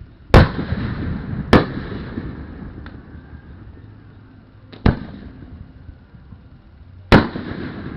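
Aerial fireworks shells bursting: four loud booms, each followed by a long rumbling tail. They come about half a second in, near a second and a half, near five seconds and near seven seconds, with a smaller pop near three seconds.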